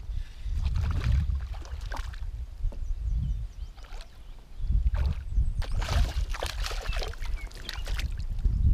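A hooked crappie splashing and thrashing at the water's surface beside a plastic kayak as it is fought in and lifted out by hand, with low knocks and rumble from the hull. The splashing is heaviest in the second half.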